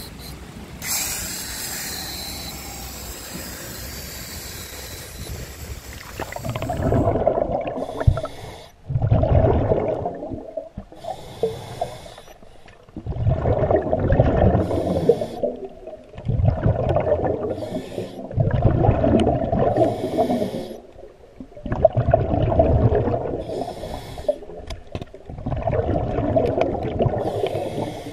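Scuba diver breathing through a regulator underwater, heard through the head-mounted camera: a short high hiss of each inhale, then a loud bubbling rumble of exhaled air, repeating every two to three seconds. For the first six seconds there is only a steady hiss, before the breathing cycle starts.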